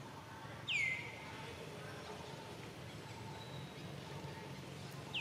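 A single short, high-pitched animal call sweeping down in pitch about a second in, over faint chirping calls and a steady low background hum.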